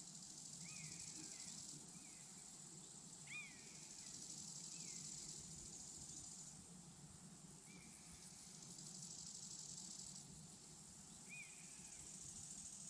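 Faint crickets trilling in a high band, in stretches of a few seconds that stop and start again, with about half a dozen short downward-sliding bird chirps.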